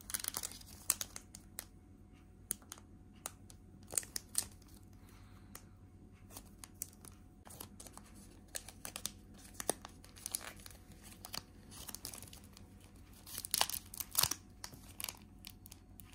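Foil trading-card booster pack crinkling in the hands, in scattered sharp crackles, with a louder stretch of tearing near the end as the pack is torn open.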